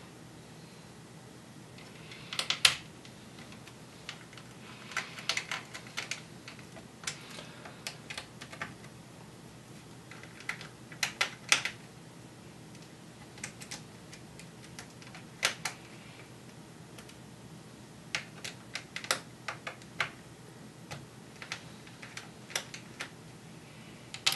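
Scattered sharp clicks and taps, some in quick clusters, from a small screwdriver working the screws in the plastic underside of a Dell Latitude 3540 laptop and from the small screws being set down on the desk.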